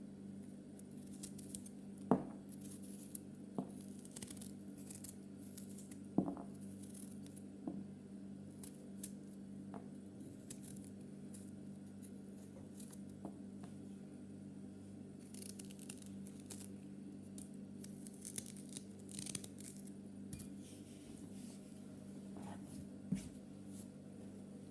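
Faint handling sounds of food preparation: short scratchy cutting and scraping sounds and a few sharp light knocks, over a steady low hum.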